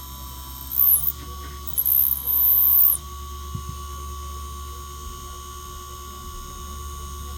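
Small electric drill whining in two short high-pitched bursts as it bores a hole in a lure body, each burst ending with a drop in pitch as the motor stops. After about three seconds only a steady low hum remains.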